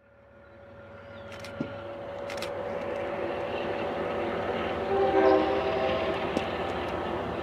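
Locomotive-hauled passenger train running, a steady rumble that fades in. The locomotive's horn sounds once, briefly, about five seconds in.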